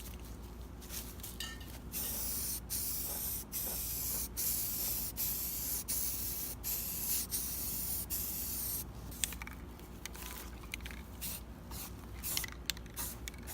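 Aerosol can of automotive primer spraying a coat: a steady hiss from about two seconds in to about nine seconds in, broken by several short pauses, with a few light clicks before and after.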